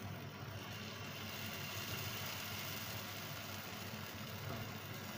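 Pancake batter sizzling faintly in hot ghee on a flat griddle (tava) as it begins to cook, an even hiss over a low steady hum.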